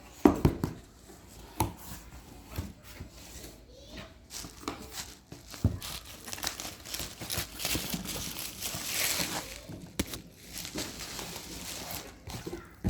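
Packaging being handled, crumpled and torn open, with a loud knock right at the start, scattered clicks and handling knocks, and a longer stretch of rustling and tearing about six to ten seconds in.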